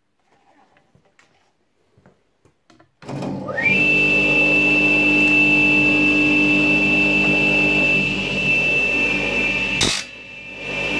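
Light handling clicks, then a wet tile saw's electric motor switches on about three seconds in, spinning up with a rising whine to a steady high whine over a low hum. Near the end there is a sharp crack as the diamond blade comes down onto the receiver's metal case, and the motor note drops.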